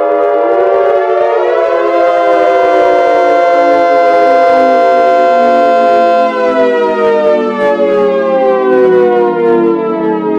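Civil defense air-raid siren wailing, several tones sounding together: the pitch rises over the first two seconds, holds steady for about four seconds, then slides slowly down.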